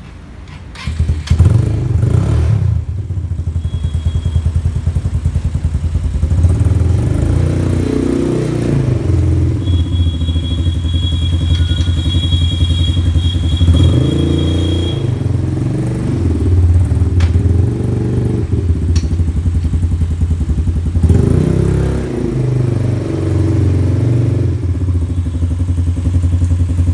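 Quad bike's 200cc GY6 single-cylinder four-stroke engine running from about a second in, its pitch rising and falling a few times as it is ridden forward and back in short runs.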